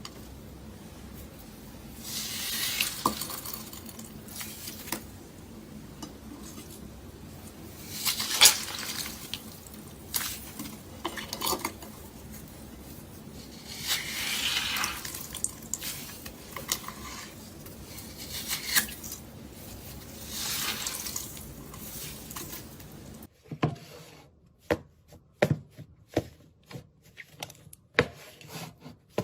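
Slime being worked by hand, with wet crackling and popping that swells every few seconds as it is pressed and pulled. About 23 seconds in, this gives way to a run of sharp, separate clicks and pops over a quieter background.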